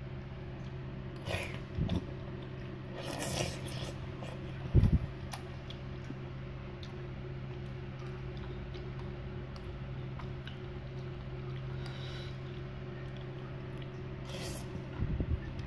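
Someone eating noodle soup: a few short chewing and eating noises over a steady low hum, with a dull thump about five seconds in.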